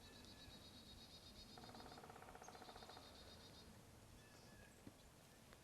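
Faint wild bird calls: a high, even trill lasting about two seconds, then another about a second long. A lower, rapid rattling call overlaps them from about a second and a half in.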